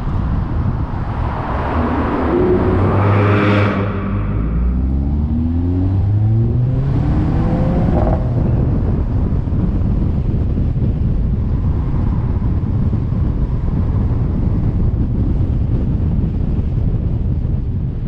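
Car engine pulling hard, its pitch rising steadily for several seconds, over constant tyre and wind noise. In the first few seconds an oncoming car swishes past, its noise swelling and then cutting off sharply.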